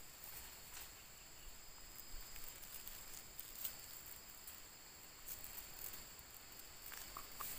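Insects droning steadily at a high pitch, with faint crinkles and ticks of a food wrapper being handled.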